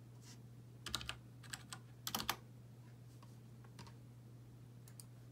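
Keystrokes on a computer keyboard: a few irregular clusters of clicks, with the busiest ones about a second and two seconds in. A faint steady hum runs underneath.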